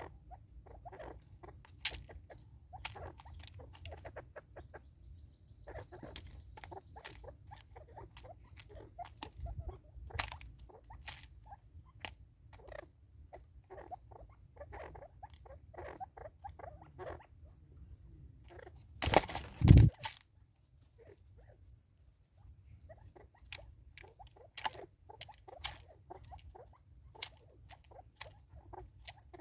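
Birds pecking at food on a feeder: rapid, irregular tapping and clicking of beaks, with one louder rustling thump about two-thirds of the way through.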